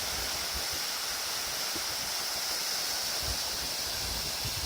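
Steady rushing of a waterfall, an even wash of water noise, with a few soft low thumps.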